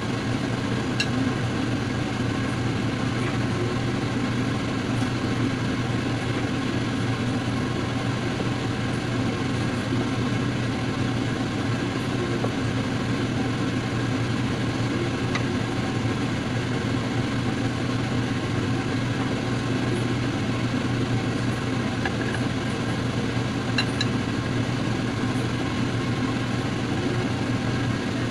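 A steady low mechanical hum that does not change, with a few faint clicks.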